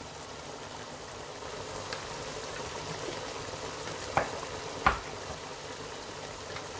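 Chicken pieces sizzling and bubbling steadily in oil and their own juices in a pot. Two short sharp knocks come about four and five seconds in.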